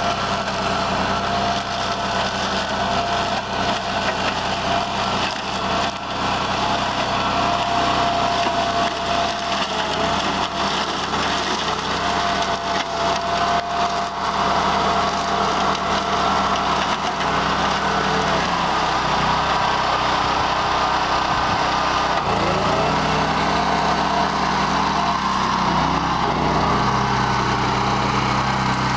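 BCS 749 walk-behind tractor's Honda gas engine running under load, driving a Berta 26-inch flail mower that chops through dry cornstalks, with snapping and crackling from the stalks, heaviest in the first half. In the second half the engine pitch sags and recovers several times as the load changes.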